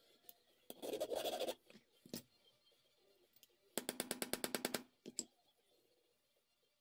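Small hammer peening the pivot pin of straight razor scales against a hammer head used as an anvil: two runs of rapid light metal taps, each about a second long, with a few single taps between and after.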